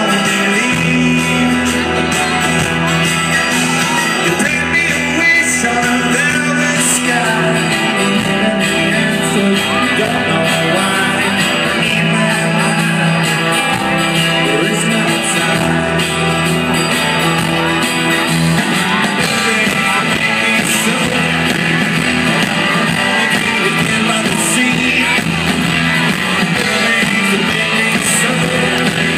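Live rock band playing, with guitars and a singing voice.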